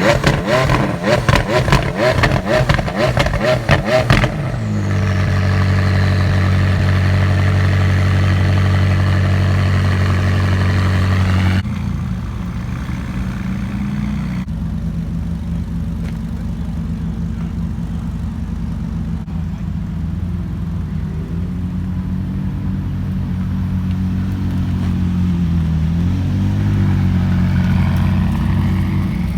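McLaren 675LT's twin-turbocharged V8 revved in quick blips with sharp exhaust crackles and pops for about four seconds. It then settles into a steady fast idle that drops to a lower idle about twelve seconds in, with small rises in revs near the end.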